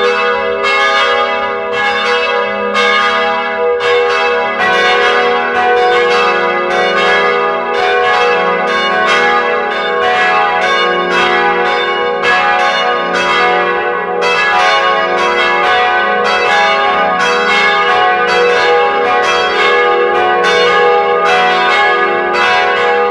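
Church bells ringing, several bells struck in quick succession at about two or three strokes a second, each stroke ringing on into the next.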